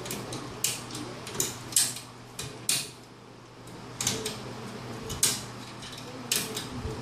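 Irregular metal clicks and clanks from an Olympia SG3 manual typewriter's carriage parts being handled by hand while its lock is fitted, about a dozen sharp knocks with a short ring.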